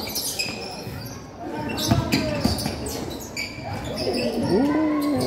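A basketball bouncing on a hard indoor court during play, with scattered sharp knocks, and voices calling out over it in the second half.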